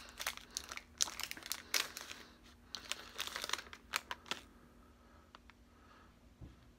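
Twix candy-bar wrapper crinkling as it is handled and the two bars are pulled out of it, in quick sharp crackles that stop about four and a half seconds in.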